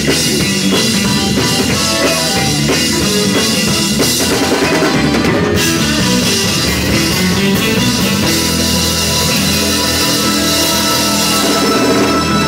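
Live gospel band playing an instrumental stretch, led by a drum kit and electric guitar.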